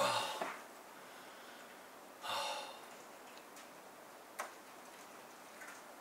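A man's heavy, weary sigh, a deep breath out through the open mouth, followed about two seconds later by a second deep breath. There is a single sharp click a couple of seconds after that.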